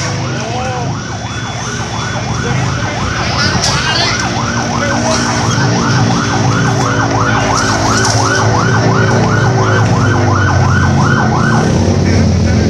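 Emergency vehicle siren on a fast yelp, its pitch rising and falling about three times a second, cutting off about a second before the end. A vehicle engine runs underneath, louder near the end.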